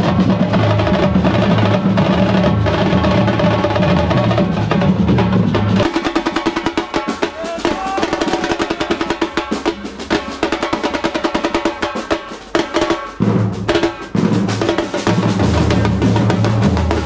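Marching drum band playing a fast rhythm on bass drums and snare drums. About six seconds in the bass drums drop out and only the snares and higher drums carry on; the bass drums come back near the end.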